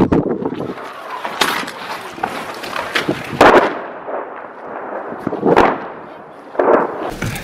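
Weapons fire in a combat zone: about six sharp bangs at irregular intervals, each with a short echoing tail, the loudest about three and a half seconds in.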